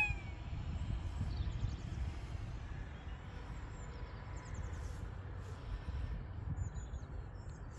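Quiet open-air ambience after the level crossing alarm stops: an uneven low wind rumble with a few faint bird chirps.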